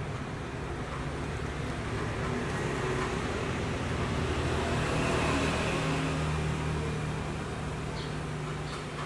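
A vehicle passing, its noise swelling to a peak about five seconds in and then fading, over a steady low hum.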